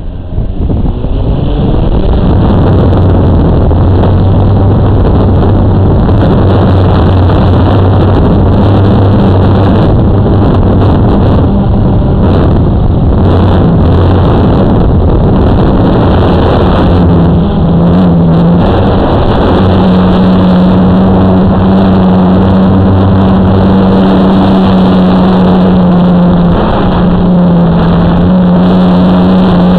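A drone's motors and propellers spin up and then run loud and steady in flight, heard from the camera mounted on the drone itself. The low hum moves to a higher pitch about two-thirds of the way through.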